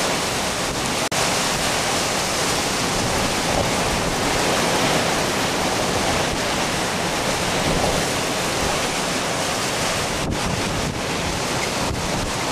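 Strong storm wind blowing hard across the microphone, a loud steady rushing noise with no let-up, dropping out for an instant about a second in.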